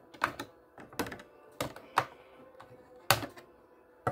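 Irregular sharp clicks and taps of plastic toy packaging being handled and worked loose, about half a dozen, the loudest about three seconds in.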